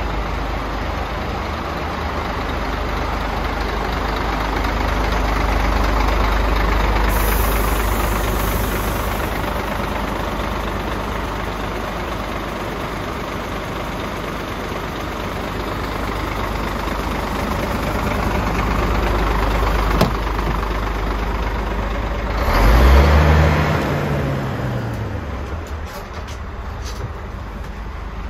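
Scania P380 tipper's diesel engine idling steadily, with one brief louder swell about 23 seconds in whose pitch rises and falls.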